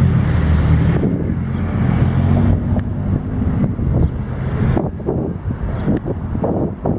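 A motor engine runs with a steady low hum for the first half, then drops away. Wind buffets the microphone.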